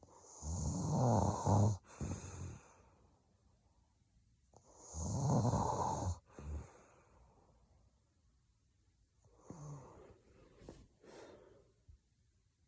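A woman snoring heavily in her sleep: two loud snores about four seconds apart, each followed by a brief second sound, then a weaker, broken snore about ten seconds in.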